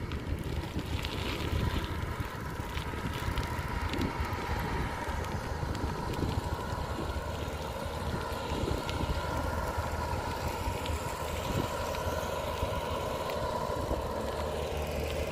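Steady engine drone of a farm tractor working a flooded rice paddy, with scattered clicks and rattles from a bicycle rolling over a concrete path.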